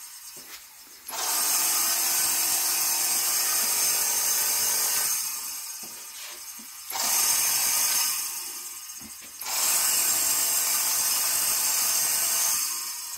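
Columbia Coatings HyperSmooth 03 LED electrostatic powder coating gun spraying in three trigger bursts: the air-and-powder hiss from the tip starts suddenly each time and tails off when released.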